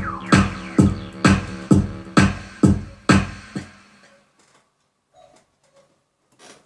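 Electronic beat-driven music from a Korg Pa50SD arranger keyboard, with a heavy low hit about twice a second. The music stops about three and a half seconds in, leaving only a few faint clicks.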